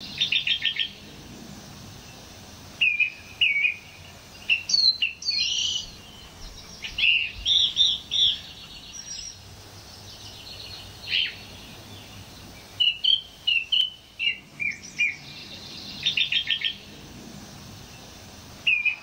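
Songbirds chirping and trilling in short clusters of high, quick notes, with brief pauses between them.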